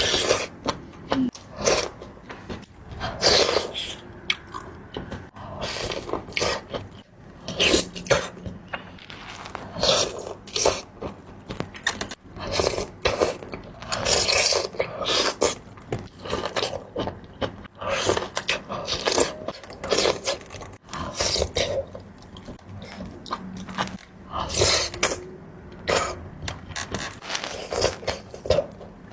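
Close-miked eating of seafood in sauce: wet chewing and crunching in irregular bursts.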